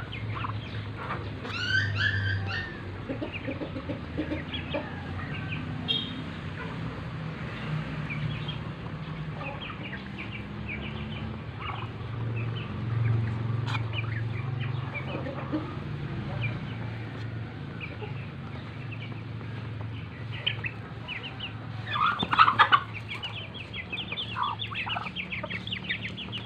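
White Muscovy ducks pecking feed grain off a concrete floor, a quick patter of bill taps, with a chicken clucking now and then.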